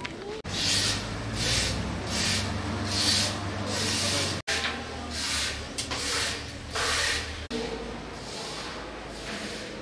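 Footsteps crunching on gravel, a regular step about every three quarters of a second over a low rumble, broken off abruptly twice by edits.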